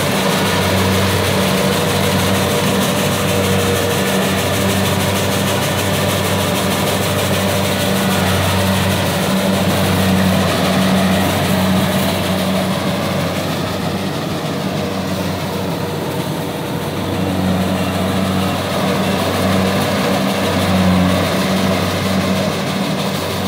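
Kubota DC70 combine harvester's diesel engine and machinery running steadily while the machine cuts and threshes rice, a continuous low drone that swells and eases slightly.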